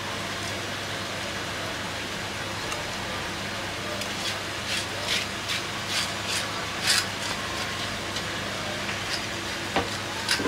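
Cleaver slicing through a large raw fish fillet on a wooden chopping block: a run of short, quick, high scraping strokes about four to seven seconds in and a few more near the end, over a steady low hum.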